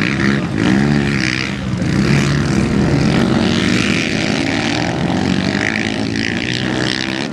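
Engines of modified racing quad ATVs revving hard, their pitch climbing and dropping over and over as the riders accelerate and back off through the turns.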